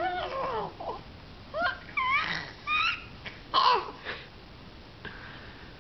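A young baby laughing and cooing in a string of short, high-pitched bursts, the loudest about three and a half seconds in, fading out near the end.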